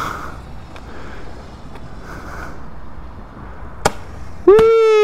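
A hand-held Roman candle fires a sharp pop about four seconds in. This is followed by a loud, high-pitched shout of "Whee!" near the end.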